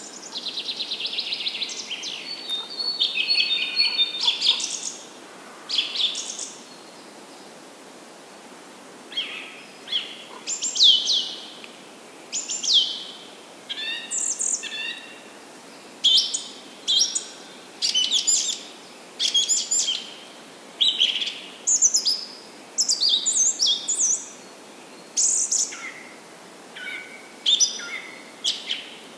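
Birds chirping and calling in varied short, high notes over a faint steady hiss. There is a fast trill in the first couple of seconds, a brief lull, then a string of sharp chirps about once a second.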